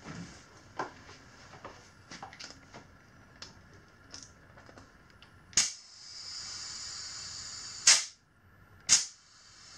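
Compressed air hissing steadily into a dirt-bike tire for about two seconds, ending in a sharp pop, with a second sharp pop about a second later. Light clicks of handling the valve and air chuck come first.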